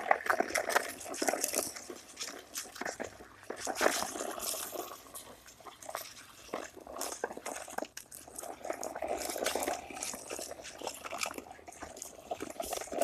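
Footsteps and the small irregular crunches and clicks of walking two leashed dogs along a path.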